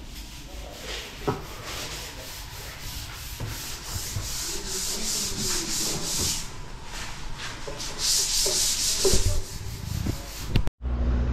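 Sanding: a rough, rasping hiss in repeated strokes that swells in waves, with a few light knocks. It stops abruptly shortly before the end.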